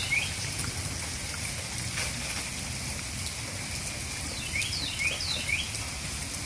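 Steady rain falling, with a small bird chirping a few quick notes right at the start and again about five seconds in.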